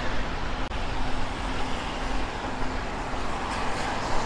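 Steady road-traffic noise on a wet street: an even hiss with a low rumble, no single vehicle standing out.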